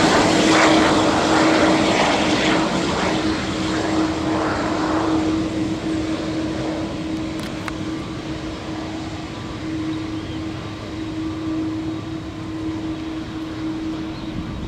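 Jet engines of a taxiing Airbus A330-200 airliner, loud at first and fading after about five seconds, with a steady hum running underneath.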